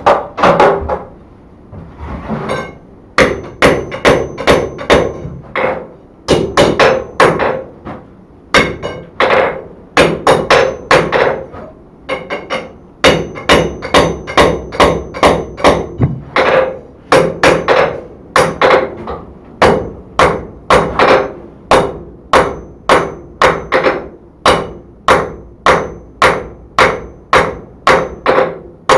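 Blacksmith's hammer striking a red-hot steel rod on an anvil, drawing out a scarf for forge welding. The blows come in runs of several, about two to three a second, each with a short metallic ring, with brief pauses between runs.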